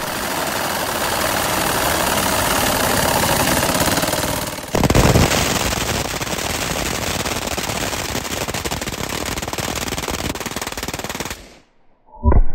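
Several MG-42 machine guns firing together in long, unbroken bursts at a very high rate of fire, the shots running together. About five seconds in the sound switches abruptly to another burst, which stops about a second before the end.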